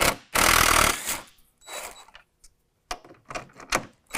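Cordless ratchet with a 10 mm socket spinning out a bolt in one burst just under a second long, followed by a few light clicks as the socket and bolt are handled.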